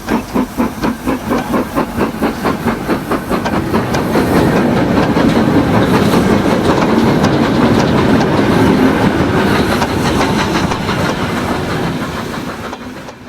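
Steam locomotive exhaust chuffing, the beats quickening as it accelerates until they run together into a continuous rush, then fading away near the end.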